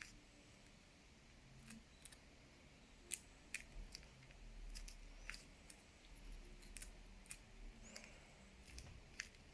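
Faint, irregular clicks, roughly one or two a second, as the bubbles of a homemade pop-it fidget toy are pressed in.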